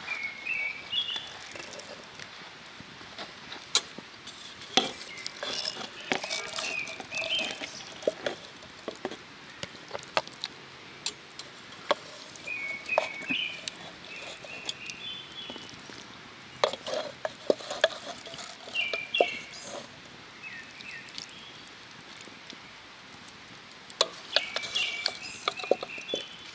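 A small bird singing a short phrase of a few quick notes, repeated about every six seconds, with scattered light clicks and taps.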